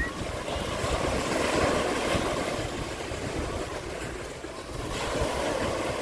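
Ocean surf breaking and washing up the beach, swelling louder about two seconds in and again near the end, with wind rumbling on the microphone.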